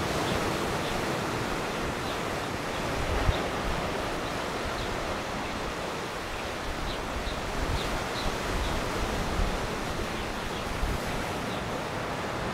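Steady rush of wind and sea surf, with uneven low rumbles of wind on the microphone and a few faint, short high chirps now and then.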